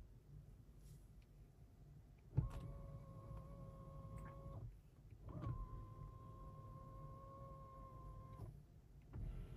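A car's small electric motor whining steadily in two runs, the first for about two seconds and the second for about three, each starting and stopping abruptly; a sharp thump marks the start of the first run.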